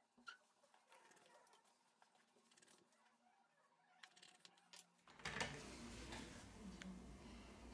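Near silence: faint scattered clicks of small handling noises, with a steady low hiss coming up about five seconds in.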